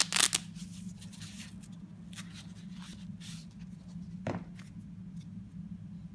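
Flap of a nylon folding-knife sheath pulled open in a few short scratchy bursts, then nylon rustling as the knife is drawn out, with a single soft knock a little past four seconds in as the knife is handled. A steady low hum runs underneath.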